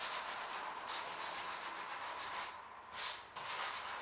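Sandpaper rubbed by hand in quick back-and-forth strokes over a polyethylene kayak hull, roughing up the plastic so the adhesive will grip. The strokes break off briefly about two and a half seconds in, then start again.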